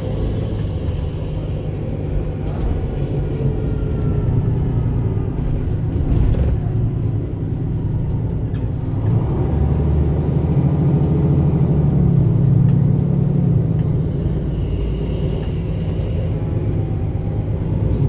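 MAN Lion's City A21 city bus with its 360 PS diesel engine and ZF EcoLife six-speed automatic gearbox, running under way while towing a trailer. The engine note rises and falls several times as the bus changes speed and gear.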